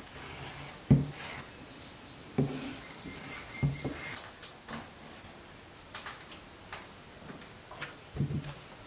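A kitchen knife cutting through soft, jelly-like leaf tofu on a wooden plate: a few dull knocks as the blade meets the wood, about a second or more apart, with faint small clicks between them.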